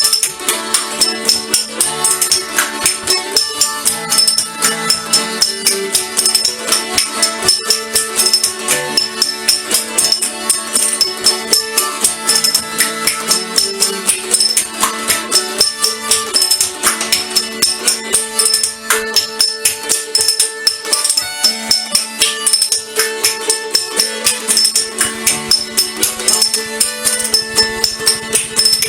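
Background music with a fast, steady percussive beat over a held drone.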